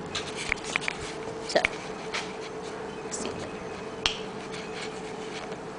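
Handling noise from a handheld camera being turned around: a scatter of sharp clicks and knocks from fingers on the camera body. A steady hum runs underneath.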